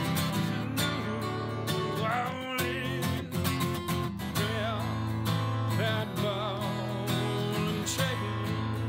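Background music led by strummed acoustic guitar, with a wavering melody line over it.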